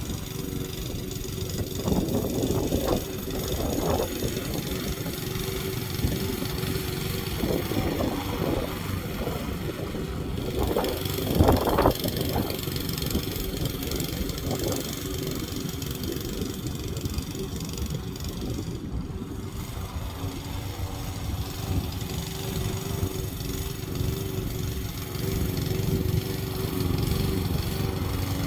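Lawn mower engine running steadily, with brief louder surges about 2 and 4 seconds in and the strongest one near 12 seconds.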